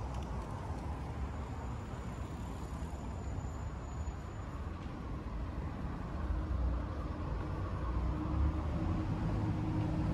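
Street traffic: a steady low rumble of road vehicles that grows louder over the second half as a vehicle's engine draws near.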